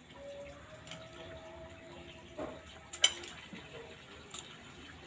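Steady wash of flowing river water, with one sharp clink of a metal spoon against a bowl about three seconds in.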